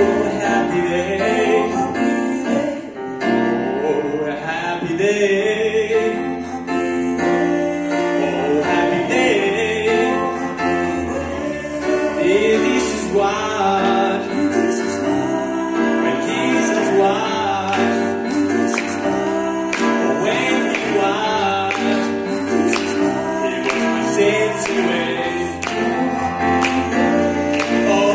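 A man singing a slow song into a microphone, accompanied by a grand piano.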